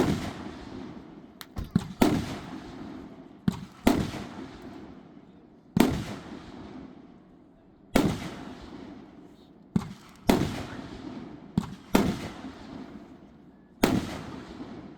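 2-inch red, white and blue peony aerial shells fired one after another, about eight in all, roughly every two seconds. Each is a sharp bang of the shell bursting, several with a smaller launch thump a fraction of a second before, and each bang trails off before the next.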